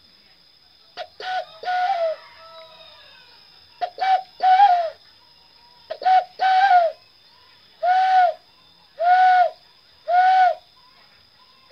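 A man imitating the coo of a zebra dove (perkutut) by blowing into his cupped hands, a bird-luring call. Short cooing notes come in groups about every second, some phrases broken into two or three quick notes.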